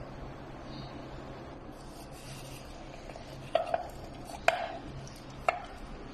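An orange half is twisted and pressed by hand on a plastic citrus reamer juicer, rubbing and squishing softly, with four sharp clicks or knocks of the plastic in the second half.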